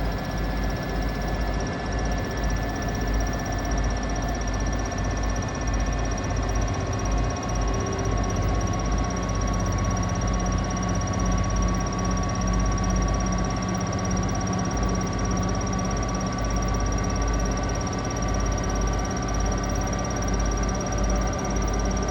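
Asko washing machine in its final spin at high speed: a steady drum rumble with a motor whine that climbs slowly in pitch.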